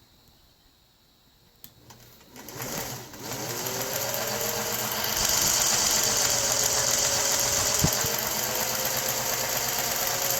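Singer 603 sewing machine motor, worked by its restored foot controller, starts up about two and a half seconds in, speeds up and then runs steadily at speed. It runs loudest for a few seconds in the middle, with a single click near the end. Running fast shows the foot controller's adjustment has worked.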